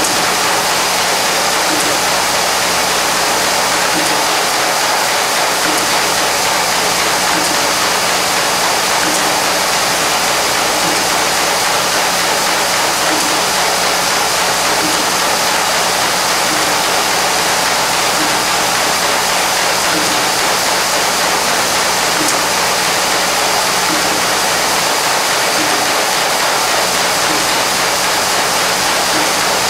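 Collated screw assembly machine running at speed, rated at 1800–2000 screws a minute, making a dense steady noise of screws being fed into plastic strips. A steady low hum runs underneath.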